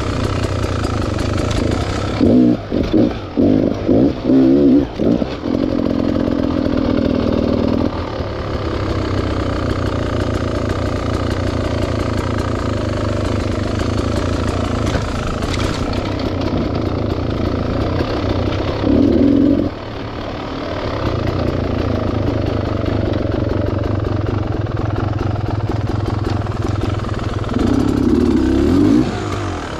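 Beta Xtrainer two-stroke dirt bike engine running steadily at low revs, with short bursts of throttle a couple of seconds in, around two-thirds through, and again near the end.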